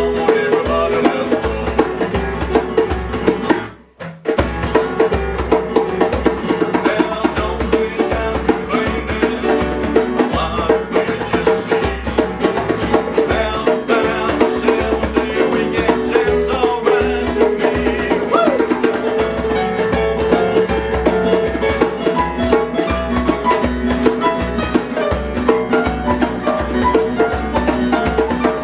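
A small band playing an unplugged rock and roll song on acoustic guitar with percussion, steady beat throughout. The whole band stops dead for a moment about four seconds in, then comes straight back in.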